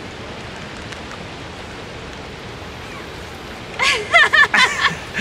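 Steady rushing hiss of water along a rocky shore, then, nearly four seconds in, a run of short, loud, high-pitched squeals.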